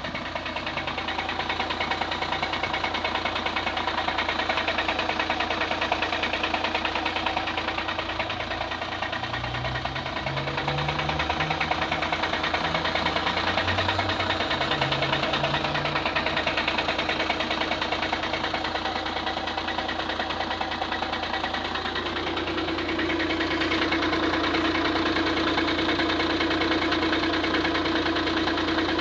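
2009 VW Passat CC's 2.0 TDI four-cylinder diesel idling cold, with a strange noise and knocking from the engine bay that appears only when the engine is cold. A new flywheel has not cured it, and the owner wonders whether the oil pump is the cause. About two-thirds of the way through, a steady hum in the sound grows louder.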